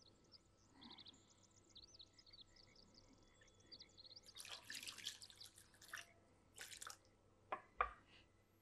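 Water poured from a jug into a pot of raw green olives: faint drips and plinks at first, then a soft splashing stream about four seconds in, and two small knocks near the end.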